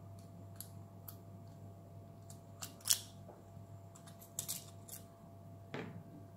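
Small scattered clicks and taps of metal tweezers and fingertips on a smartphone's internal metal shields and plastic parts as its mainboard is prised loose, the sharpest click about three seconds in and another near the end.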